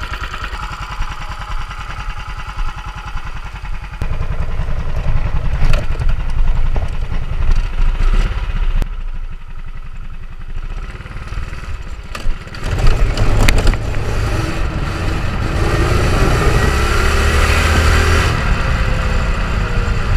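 Honda GX390 single-cylinder engine running through a Yamaha R1 motorcycle muffler on a go-kart, a steady low firing beat. It gets louder about 4 s in and again about 13 s in as the kart is driven, with the pitch rising under throttle near the end and a few sharp clicks along the way.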